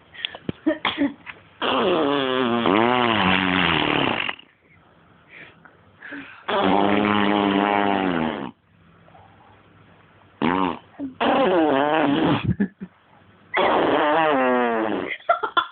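Baby blowing raspberries, buzzing the lips with her voice. The sound comes four times, each lasting two to three seconds, with a wavering pitch.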